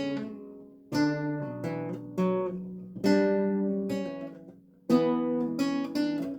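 Renaissance lute played solo: plucked chords struck about every two seconds, each left to ring and die away, with single notes picked in between.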